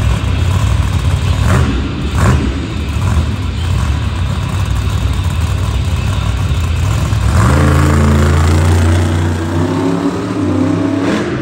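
Monster truck's supercharged V8 running with a heavy low rumble, then revving hard about seven and a half seconds in as the truck pulls away, its pitch climbing.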